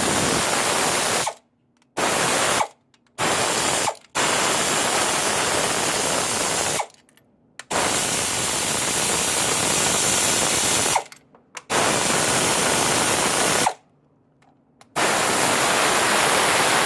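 A power tool spinning out the loosened cylinder head bolts of a Toyota 3.3 V6, in seven runs of one to three seconds with short pauses between them as it moves from bolt to bolt.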